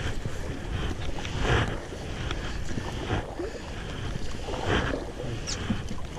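Kayak paddles splashing into river water in strokes about every second and a half, over a steady rush of moving water. Wind buffets the microphone with a low rumble.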